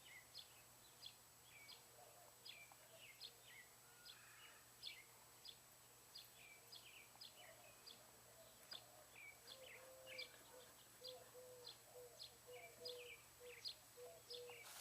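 Faint birds chirping in the background: a steady run of short, sharp high chirps, about two a second. About ten seconds in, a lower short note starts repeating evenly beneath them.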